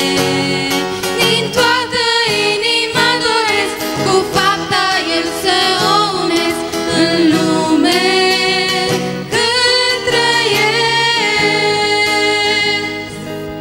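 Three women singing a Romanian Pentecostal hymn in harmony, accompanied by a strummed acoustic guitar. Near the end the last held chord fades away as the song finishes.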